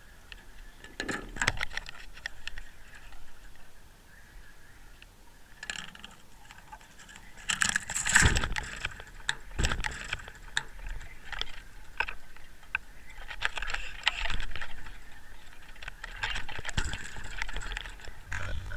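Small metallic clinks, rattles and scrapes of fishing tackle knocking against the line-mounted camera as a hooked fish is unhooked and let go, coming in irregular bursts with the loudest cluster about eight seconds in.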